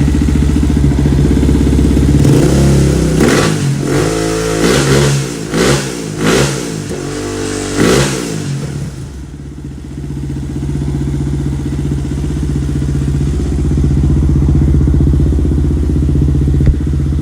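Honda 400EX ATV's single-cylinder four-stroke engine running after a top-end rebuild. It idles, is blipped up and down about five times between roughly two and eight seconds in, then settles back to a steady idle.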